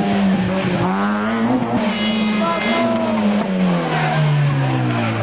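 Rally car engine running hard, its pitch rising and dipping with the throttle, then falling steadily over the last second and a half.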